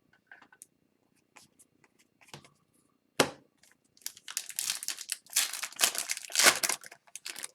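Foil wrapper of a hockey card pack crinkling and tearing: a sharp crackle about three seconds in, then a dense run of crinkling over the last few seconds.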